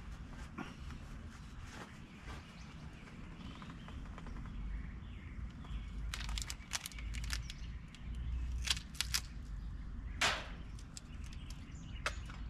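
Wind rumbling on the microphone, with a run of short crackles and clicks from hands handling small items on a metal table, the loudest about ten seconds in.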